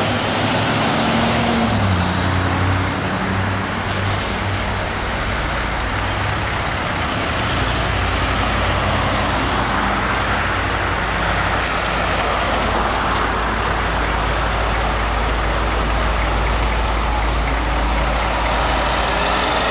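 Street traffic: cars driving past and an articulated diesel transit bus running, with a continuous engine and road rumble. A car engine rises in pitch as it accelerates away about a second or two in.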